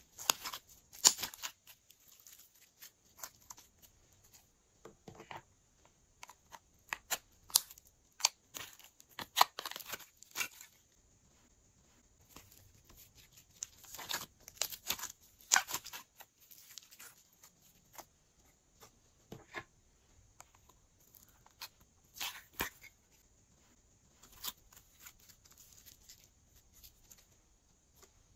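Glossy slime squeezed and kneaded by hand, giving wet clicks, crackles and pops from trapped air. They come in irregular clusters with short pauses between.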